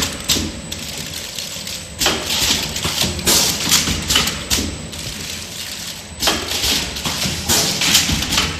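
Blister packaging machine for alcohol cotton balls running its cycle: bursts of hissing and clattering that recur every second or two, over a steady low hum.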